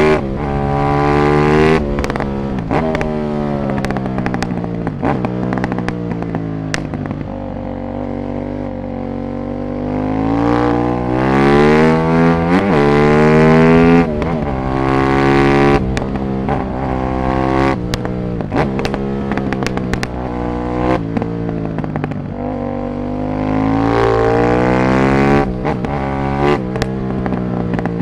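Aprilia SXV550 V-twin supermoto with a full Silmoto exhaust, accelerating hard and shifting up, the engine note climbing and dropping back with each gear change, then easing off, over and over. Short sharp cracks are scattered through it, over a steady low rumble.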